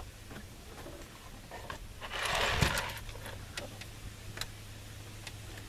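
Light clicks and knocks of plastic dash parts being handled while the heater and A/C control is worked loose under a pickup's dashboard, with one short scraping rustle a little over two seconds in. A faint steady low hum lies under it.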